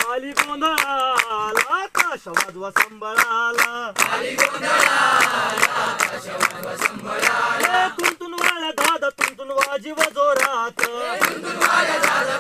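A group of voices chanting a song in unison while clapping in steady time, about three claps a second. A thinner lead line alternates with fuller passages where the whole group sings, in call-and-response.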